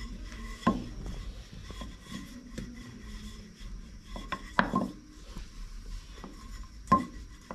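Wooden rolling pin rolling thin pastry dough out on a tiled countertop: a soft rubbing, broken by three sharp knocks of the pin, about a second in, past four seconds and near the end.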